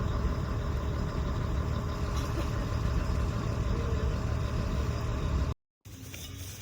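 Steady low engine rumble that cuts off abruptly about five and a half seconds in, replaced by a quieter background.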